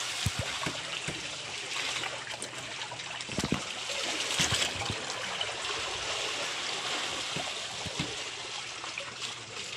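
Sea water lapping and splashing against the side of an outrigger fishing boat, with a few faint knocks.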